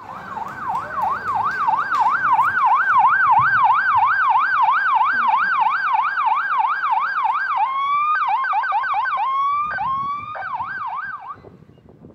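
Police car siren on a fast yelp, its pitch sweeping up and down about three times a second. Near the end it breaks into short rising whoops and a few last yelps before cutting off.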